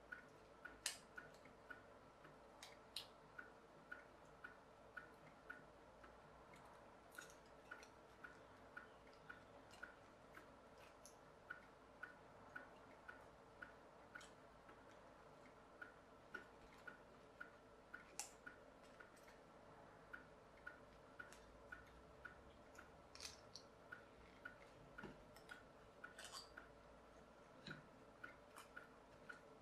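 Faint, even ticking at about two to three ticks a second, under irregular sharper clicks from needle-nose pliers and wire or tinplate being handled.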